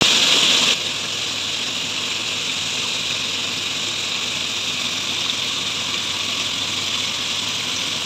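Steady sizzling hiss of food cooking on the stove, with a glass pot lid lifted off the cooked rice; a little louder in the first moment, then even.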